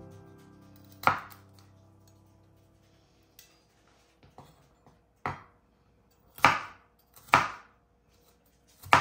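A chef's knife striking a bamboo cutting board as garlic cloves are sliced: about five sharp knocks spaced a second or so apart, with a few lighter taps between.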